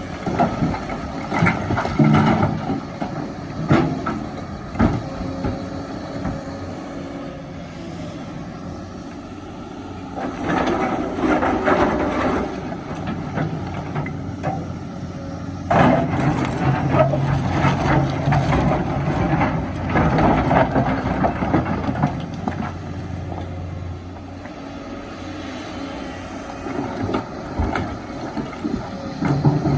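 Kobelco excavator's diesel engine running steadily, with repeated stretches of rock scraping and clattering as the bucket digs and loads, and a few sharp knocks. The low engine hum drops away a little after three-quarters of the way through.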